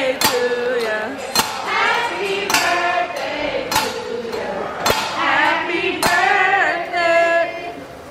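Singing voices, with a sharp clack about once a second keeping a steady beat.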